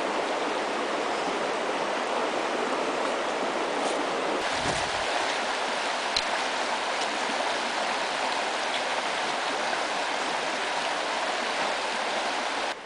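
Rushing river rapids: a steady, unbroken roar of white water flowing over rocks.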